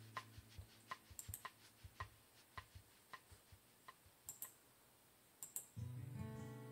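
Faint, irregular clicking from working a laptop, a click every half second or so with a few sharper ones. Acoustic guitar music comes in near the end and is louder than the clicks.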